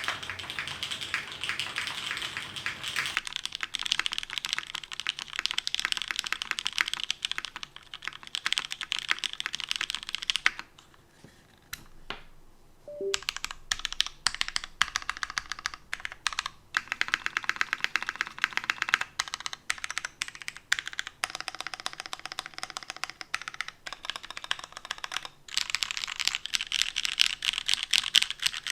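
Custom mechanical keyboard with lubed Cherry MX Black linear switches in an aluminum plate and DCS-profile keycaps being typed on quickly: a dense run of key clacks, a pause of about two seconds near the middle, then more typing.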